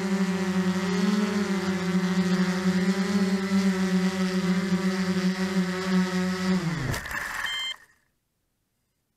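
Traxxas Aton quadcopter's brushless motors and propellers running steadily while it sits on the ground, then winding down in pitch to a stop about seven seconds in. A short high beep comes as they stop, and the sound cuts off.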